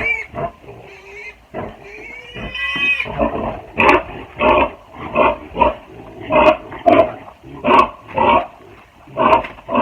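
Pig grunting repeatedly in short loud calls, about two a second, starting about three seconds in after a few scattered calls. It is the sound of an agitated sow whose piglets have just been taken from her pen.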